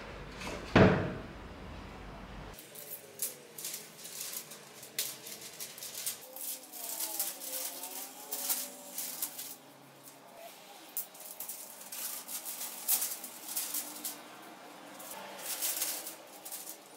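A wooden log set down with a heavy thump about a second in, then crisp crackling and rustling of newspaper sheets being handled and pressed against glass panels.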